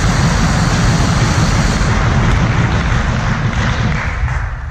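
Spectators cheering and clapping, loud, with a deep rumble underneath, easing off near the end.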